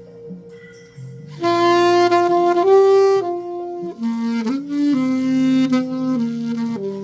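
Selmer Mark VI alto saxophone with a Theo Wanne Lakshmi mouthpiece playing a slow melody, recorded dry without added effects. A loud phrase of held notes comes in about a second and a half in, and a second phrase follows about four seconds in.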